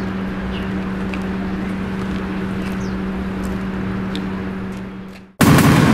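Outdoor background: a steady low hum over a traffic-like rumble, with a few faint short chirps. It fades out shortly before the end, and then a sudden loud, noisy burst cuts in.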